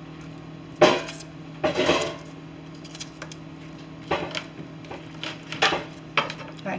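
Kitchen knife knocking and scraping against a skillet and through onion as diced onion is pushed over fish fillets: a handful of separate clinks and scrapes, the sharpest about a second in.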